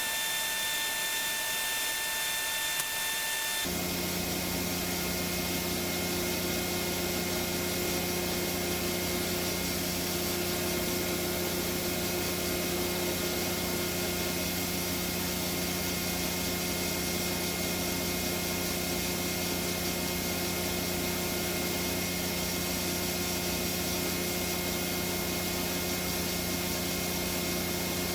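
Workshop power tool running steadily. A high whine in the first few seconds gives way at about four seconds to a lower, noisier steady running sound that holds to the end.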